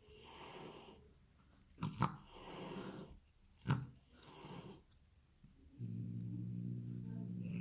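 A cat making three wheezy, breathy sounds, with a couple of sharp clicks between them. From about six seconds in it changes to a steady low purring rumble.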